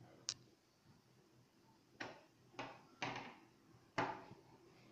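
Hard plastic parts of a 3D-printed snake skull model being handled: a sharp click near the start as a jaw piece comes away, then a few light knocks about two, three and four seconds in as it is set down on a wooden table.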